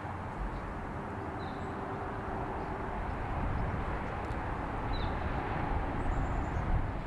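Steady low rumble of distant engine noise, swelling slightly near the end, with a couple of faint high chirps.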